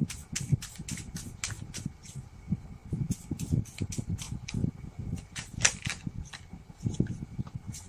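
A deck of tarot cards shuffled by hand: a quick, irregular run of sharp card clicks and slaps, several a second.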